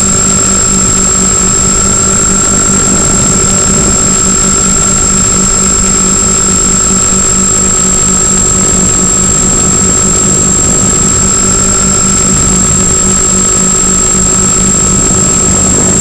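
Multiplex Twinstar 2's twin electric motors and propellers running steadily in flight, heard from on board the plane over rushing air noise, with a steady high-pitched tone running over it.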